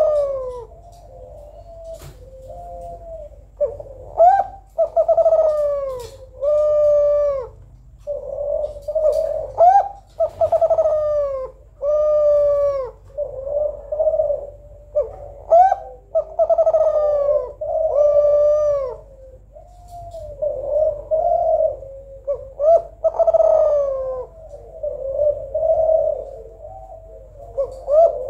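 Female spotted dove of the Kelantan breed (derkuku Kelantan) cooing over and over in a steady rhythm. The short phrases are each made of two or three bending coos and follow one another every second or two.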